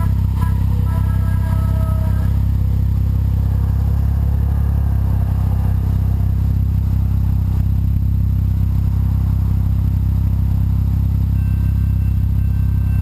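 BMW 135i's turbocharged inline-six idling through a Berk full sport exhaust with catless downpipes: a loud, steady low drone that holds one pitch.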